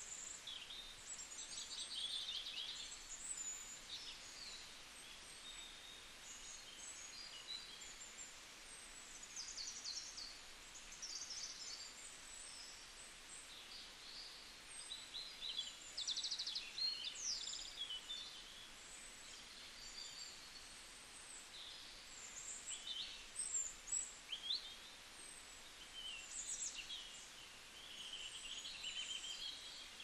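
Many small birds chirping and twittering in an evening chorus: dense, overlapping high chirps and short trills, over a faint steady hiss.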